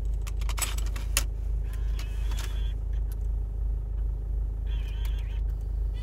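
A cassette is pushed into a car's factory tape deck: several sharp clicks in the first second as the mechanism takes it, then two short whirs from the deck around two and five seconds in as it loads into play. The car's engine idles steadily underneath as a low hum.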